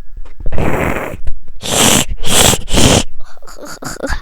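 Sound effects: a series of breathy, hissing noise bursts, three loud ones close together about two seconds in, followed by several short, quieter puffs near the end.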